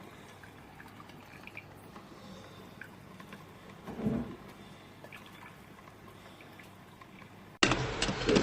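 Drip coffee maker running, with faint dripping and gurgling of water and a single low thump about four seconds in. Near the end the sound cuts suddenly to a louder, different recording.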